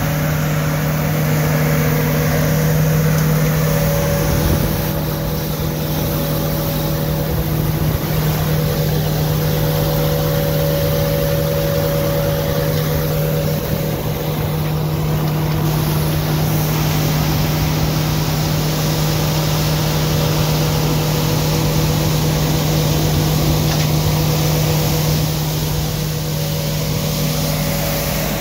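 Bucher CityCat 5000 compact street sweeper running steadily, its engine and suction fan making a constant low hum over the scrubbing noise of its spinning gutter brushes on paving.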